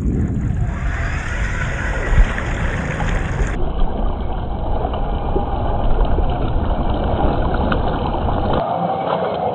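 Electric 1/10-scale RC crawler truck with a 27-turn brushed motor ploughing through a deep mud puddle. Mud and water slosh and splash steadily over the running motor and drivetrain.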